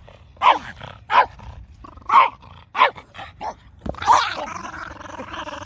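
A dog barking during play: five short, sharp barks about a second apart, the last drawing out into a longer, rougher sound.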